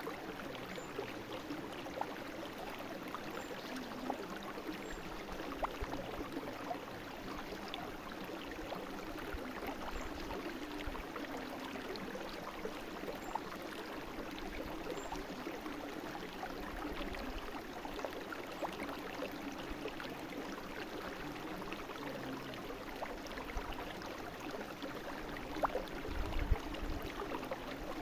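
Brook flowing: a steady rush of water dense with small splashes and gurgles, with a brief low rumble near the end.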